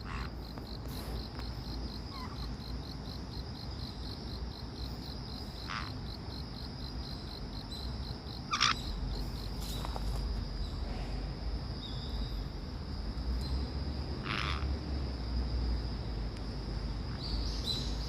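Steady high cricket-like trilling with a pulsing chirp beneath it that stops about halfway through. Three short, sharp calls from a caique parrot stand out, about 6, 8.5 and 14.5 seconds in.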